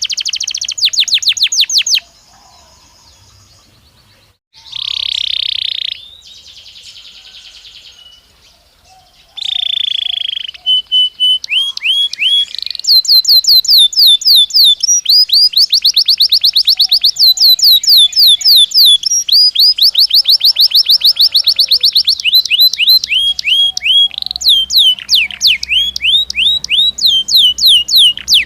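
Belgian canary singing: fast trills of repeated down-sweeping whistled notes, broken in the first third by two short buzzy phrases and quieter pauses, then running almost without a break through the rest.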